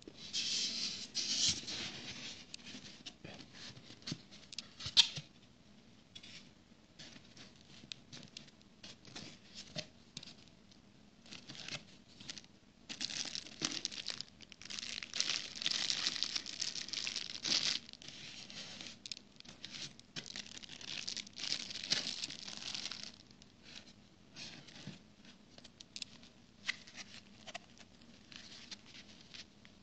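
Packaging being handled and opened: plastic wrapping and foam packing crinkling, rustling and tearing in irregular bursts, with scattered sharp clicks, the loudest about five seconds in.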